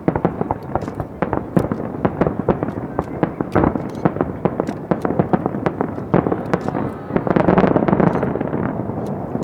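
Aerial fireworks going off in quick succession: many sharp bangs and crackles a second, overlapping. They swell to a dense, louder crackle about seven seconds in, then start to thin out.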